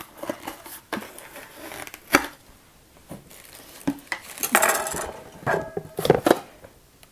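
Cardboard packaging rustling and hard plastic and metal hand-blender parts knocking and clinking as they are lifted out and set down, with a sharp knock about two seconds in and a busier stretch of rattling handling in the second half.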